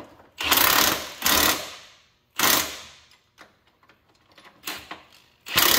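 Cordless impact wrench hammering in several short bursts, driving the nuts tight on a planter row unit's bracket bolts.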